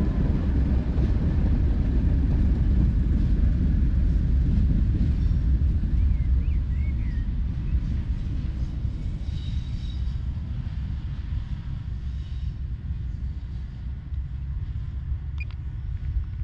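Low, steady rumble of a train hauled by Class 37 diesel locomotives with English Electric V12 engines, easing off over the second half as it moves away.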